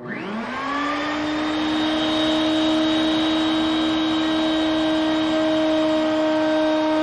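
Table-mounted router switching on, its whine climbing as the motor spins up and levelling off within about a second and a half into a steady high whine. A 1/4-inch straight bit then cuts a groove in a small wooden panel pushed over it.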